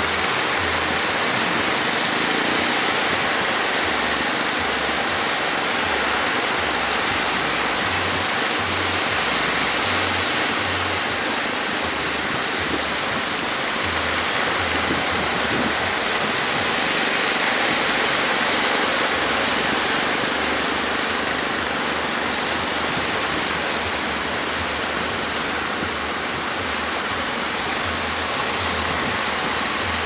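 Heavy surf: a steady, unbroken rush of breaking waves and churning water.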